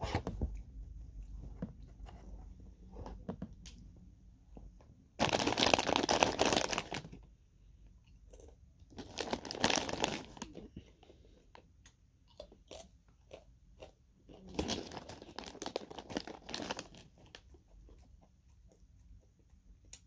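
Plastic snack bag of banana chips crinkling and rustling as it is handled, in three spells: about five seconds in, about nine seconds in, and a longer one near fifteen seconds. Between the spells come short, quiet crunches of dried banana chips being chewed.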